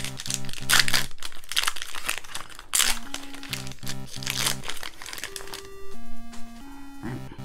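Foil trading-card booster pack wrapper crinkling as it is handled, in a run of crackles that stops about five seconds in, over 8-bit lofi background music.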